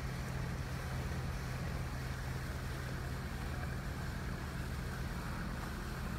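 Boat engine running at a steady low hum, with wind and water noise.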